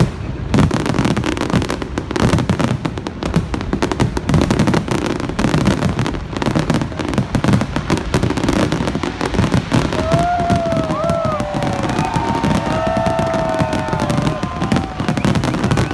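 Fireworks display: a continuous barrage of bangs and crackling, densely overlapping. About ten seconds in, a few whistling tones rise and fall over the bangs.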